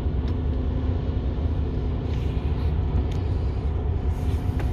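Mercedes-Benz Arocs 4142 concrete mixer truck's inline-six diesel engine running with a steady low rumble, heard from inside the cab, with a few faint clicks.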